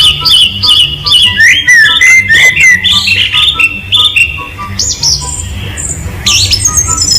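A parrot calling loudly: a fast string of shrill chirps and whistles that slide up and down in pitch, over faint background music.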